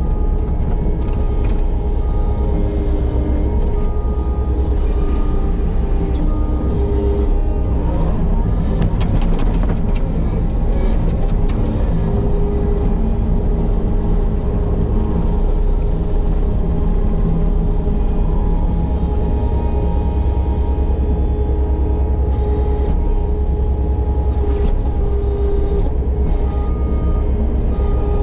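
Case TV450 compact track loader's diesel engine running steadily, with a few sharp cracks about eight to ten seconds in.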